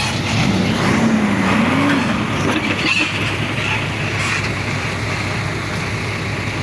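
A heavy diesel engine of a crawler bulldozer runs steadily under load, its pitch wavering up and down for a moment about a second in.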